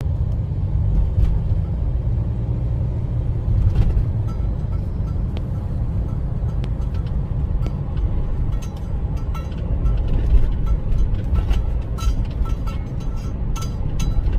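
Steady low road and engine rumble of a moving car, with music playing over it.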